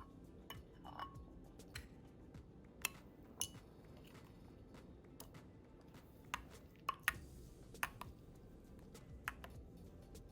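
Scattered light clicks and clinks of kitchen utensils against dishes while potato balls are coated in egg and breadcrumbs, about a dozen short ticks, a few of them sharper around the middle.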